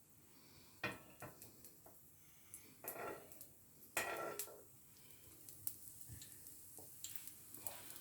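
Kitchen utensil clinking and scraping against a dosa pan in a few separate knocks and short scrapes, the loudest about four seconds in, as ghee is spooned around a dosa.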